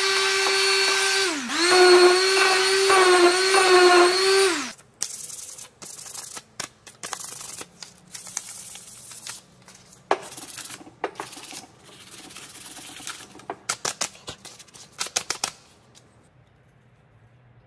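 A small power tool's motor running at a steady high whine, dipping briefly under load and cutting off about five seconds in. It is followed by irregular strokes of sandpaper rubbing on wood as the wooden mallet is sanded by hand, which stop a couple of seconds before the end.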